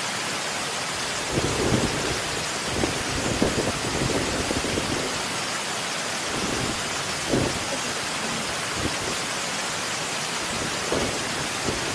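Wind buffeting the microphone: a steady rushing hiss with irregular low rumbling gusts.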